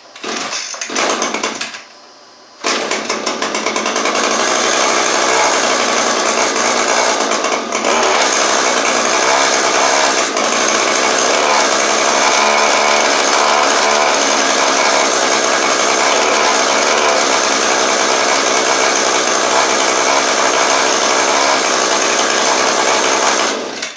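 Echo PAS-225 two-stroke power head started cold on choke: it runs for about two seconds, cuts out for a moment, then picks up again and runs steadily until it stops near the end.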